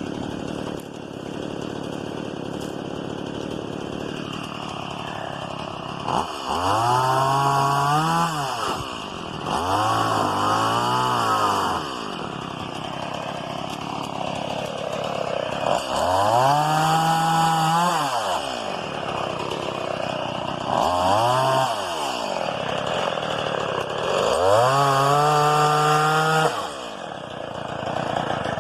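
Gas chainsaw running at idle and revved to full throttle five times, each burst lasting a couple of seconds with the engine pitch climbing then falling back, while cutting up felled tree limbs.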